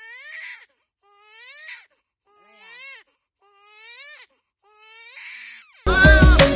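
Newborn baby crying in five short wails about a second apart, each rising and then falling in pitch. Near the end much louder music cuts in suddenly.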